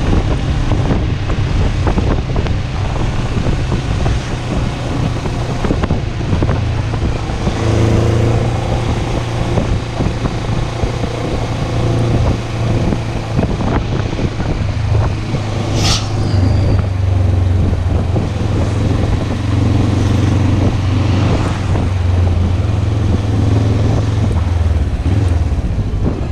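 Motorcycle engine running while the bike is ridden, its note shifting as the rider changes speed, under steady wind and road noise. A brief sharp chirp cuts in about two-thirds of the way through.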